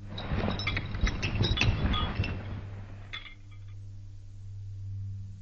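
A low, steady humming drone. For about the first three seconds it is overlaid with a dense clatter of glassy clinks and chime-like strikes, then the drone continues alone.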